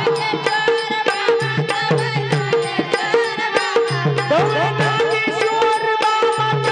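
Marathi bhajan music: a voice with melodic accompaniment over a quick, steady tabla-style drum beat.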